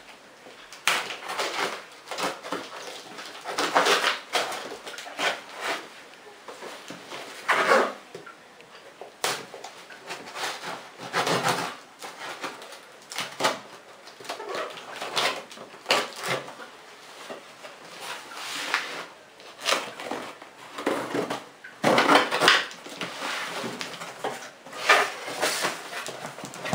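Packing tape being cut and torn from a cardboard shipping box and its flaps pulled open: a long run of irregular short scraping, tearing and rustling sounds of tape and cardboard.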